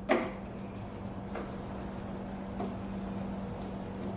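A sharp click, then a few faint ticks about a second apart, from hand work with a screwdriver on the welder's casing screws, over a steady low hum.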